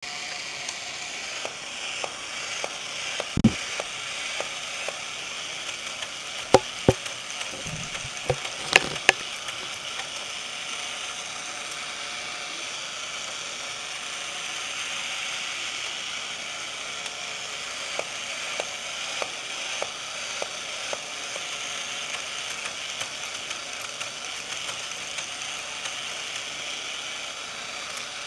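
Battery-powered Charlie Weaver Bartender toy running: a steady whir of its small motor and gears with light ratcheting clicks as it works its arms. Several sharp knocks in the first nine seconds or so.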